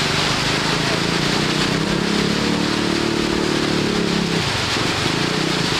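Heavy rain falling steadily in an even hiss. Under it a low humming drone, engine-like, fades out about four seconds in.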